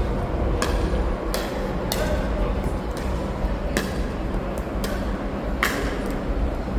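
Pickleball paddles popping against a plastic ball in soft dink exchanges: about six sharp hits at uneven intervals, the loudest near the end.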